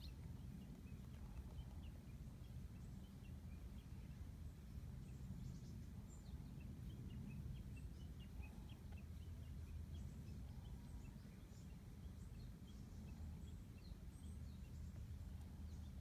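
Faint, steady low purring from a tabby cat being scratched on the head, with a few scattered faint high ticks over it.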